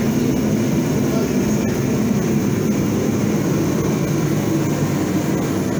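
A steady low mechanical roar from a running machine, unchanging in level.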